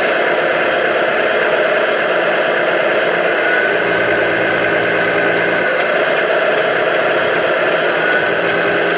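Scale-model Scania 113 truck running along a floor: a steady engine-like whir, with a faint whine that rises and falls a couple of times.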